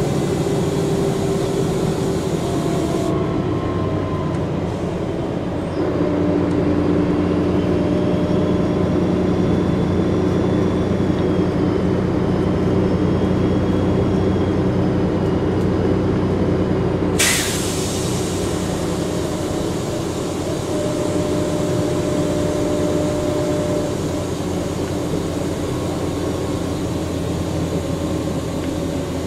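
Volvo Olympian double-decker bus's turbo-diesel engine running under way, with a high, wavering turbo whistle over the engine note for much of the time. About two-thirds through, a sudden hiss of compressed air cuts in and fades.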